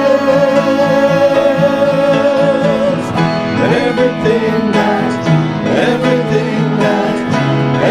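Hymn singing with plucked-string accompaniment: a voice holds the final note with vibrato for about three seconds, then the instruments play on alone.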